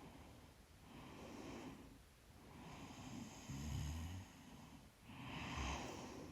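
A sleeping woman breathing slowly and deeply close to the microphone, about three breaths, the second and third carrying a brief low snore.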